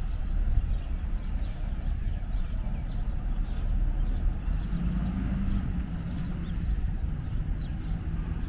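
Footsteps of someone walking on pavement, over a steady low rumble, with a faint hum joining about halfway through.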